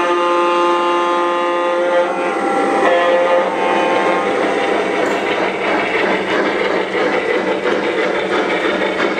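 Horn of a sound-equipped O gauge model diesel locomotive sounding a held chord that changes pitch about two seconds in and stops about a second later. After that comes the rumble and clatter of the model train's wheels rolling over three-rail track.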